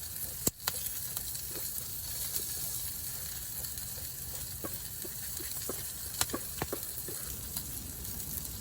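Chicken frying in a cast iron pan over a campfire, a steady sizzle broken by scattered short clicks and crackles, with one sharp click about half a second in.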